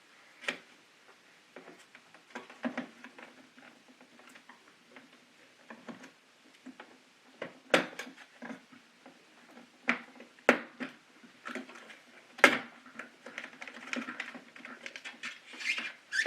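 Plastic clicks, taps and scraping as the KeyTronic E3601 keyboard's plastic case clips are pried loose, with several sharper clicks spread through.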